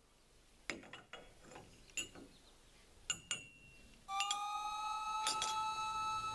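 Metal teaspoon clinking against a porcelain coffee cup while stirring, about six sharp clinks with a short ring. About four seconds in, steady held musical tones come in.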